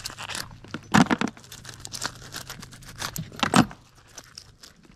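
Rusty steel nails clinking and scraping as gloved hands pull them off a fishing magnet into a box, with two louder metallic clunks about a second in and again about two and a half seconds later.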